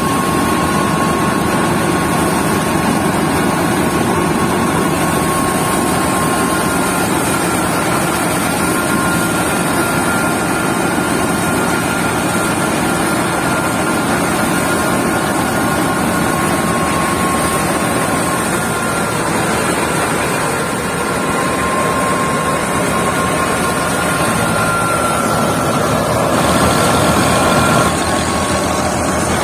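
Tractor-driven threshing machine running steadily as dry mustard stalks are fed in by hand. The tractor engine and the beating drum make a dense, continuous din, with a steady high whine from the spinning machinery over it.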